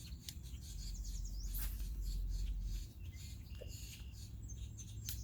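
Small birds chirping in short high calls, over a low, uneven rumble of wind on the microphone, with a few faint clicks.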